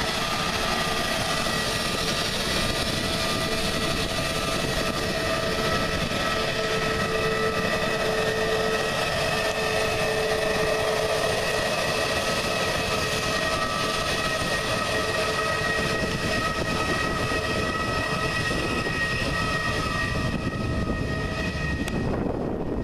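Airbus A320neo's CFM LEAP-1A turbofan engines running at taxi power as the airliner rolls past and turns onto the runway: a steady whine of several held tones over a broad rush. About 21 seconds in, the whine fades and a low rumble, like wind on the microphone, takes over.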